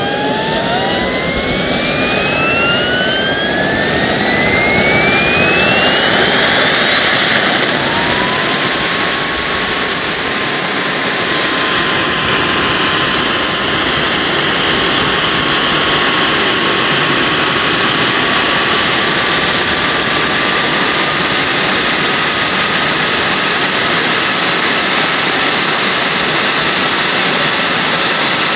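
Micro gas turbine jet engine running on kerosene, spooling up with a whine that rises steadily in pitch over the first several seconds, then holding steady at speed with a high whine over a loud rush of exhaust.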